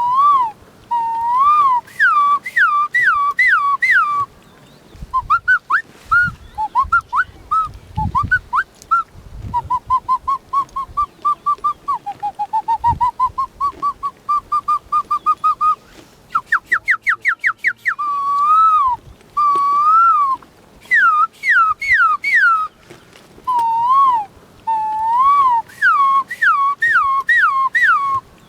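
A boy whistling imitations of birdsong: repeated swooping notes, then a long run of quick short notes in the middle, then more rising-and-falling swoops.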